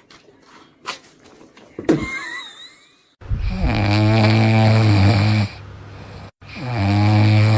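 Dog snoring: two long, loud snores, the first about three seconds in and the second near the end. A few faint clicks and a short squeak come before them.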